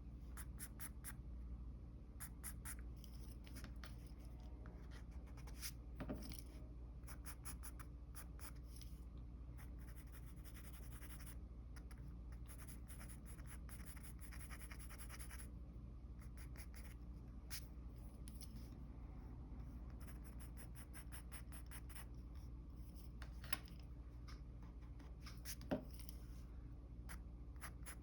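Pencil graphite scratching on paper in rapid short strokes, faint, with a few small sharper clicks about six seconds in and again near the end. A faint steady low hum underneath.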